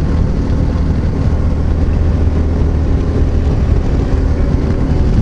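Steady wind rush and low rumble on the microphone at highway speed, over the steady drone of a Yamaha XT660Z Ténéré's single-cylinder engine cruising at about 110 km/h.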